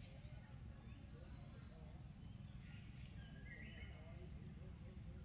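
Faint outdoor forest ambience: a steady high insect drone, with a few short bird chirps a little past the middle, over a low rumble.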